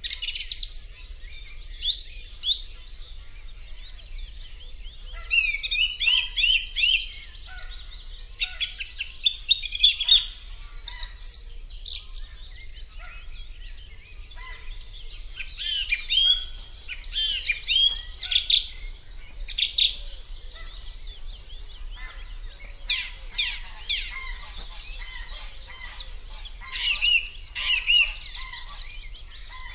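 Several songbirds singing at once: a continuous tangle of overlapping high-pitched chirps and song phrases.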